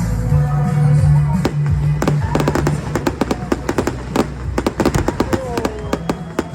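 Fireworks popping and crackling in rapid, dense bursts over loud music with a steady bass line. The crackling starts about a second and a half in and grows thicker.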